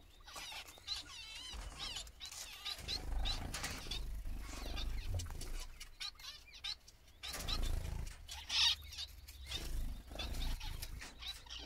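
Male zebra finch singing: a string of short chirps and wavering, warbled notes, with other small aviary birds chirping around it.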